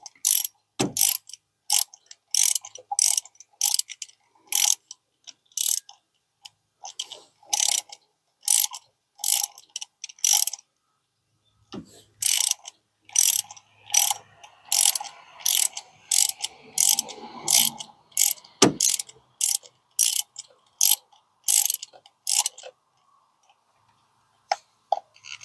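Ratchet wrench clicking in short runs, about one to two a second, as it drives a new spark plug down into the cylinder head of a 1.4-litre turbo Ecotec engine. The clicking breaks off briefly about eleven seconds in and stops near the end.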